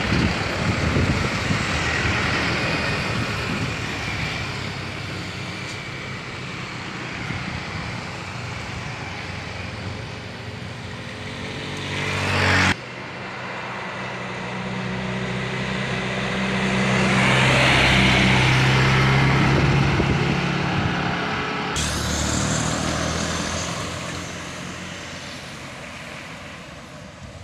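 Loaded diesel cargo trucks driving past one after another, their engines running loudest as one goes by about two-thirds of the way through, then fading as it pulls away. The sound changes abruptly twice.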